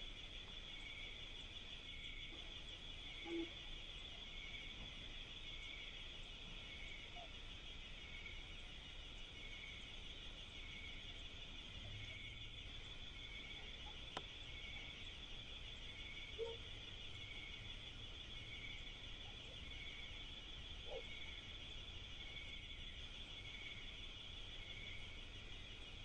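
Steady insect chorus, a high continuous trill with a softer pulse repeating about once a second. A few faint short low sounds come through, the loudest a few seconds in, and a sharp click just past the middle.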